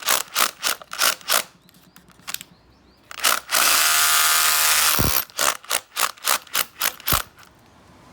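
Makita hammer drill triggered in quick short pulses, about three or four a second, then run steadily for about a second and a half at a constant pitch, then pulsed again.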